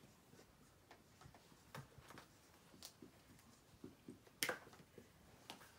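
Faint scattered taps and clicks of dry-erase markers on small whiteboards during writing, with a sharper click about four and a half seconds in and another near the end.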